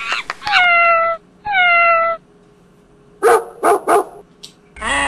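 Animal calls: two drawn-out calls falling in pitch, then three short sharp yelps. Near the end a run of arched, honk-like calls begins.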